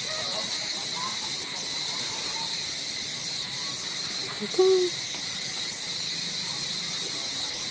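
Steady high-pitched insect chorus filling the forest background, with a few short faint calls over it, the loudest about halfway through.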